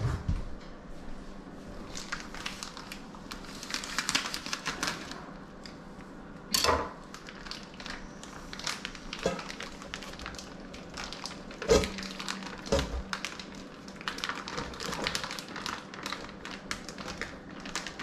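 Plastic bag crinkling as it is cut open and handled, with many small crackles and a few louder knocks.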